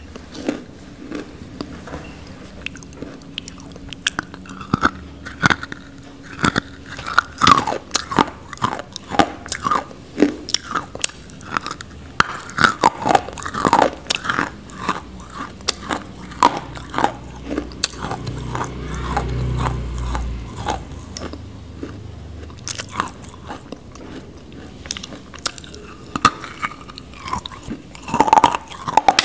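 Grey nakumatt clay being bitten and chewed right at a lapel microphone: sharp, irregular crunches with softer chewing between them. A brief low rumble comes about two-thirds of the way through.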